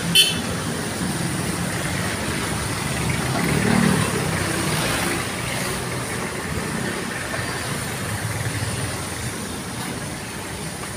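Road traffic of cars and motorcycles running past on a wet road, a steady drone of engines and tyres, with one vehicle passing closer and louder about four seconds in. A brief sharp sound right at the start.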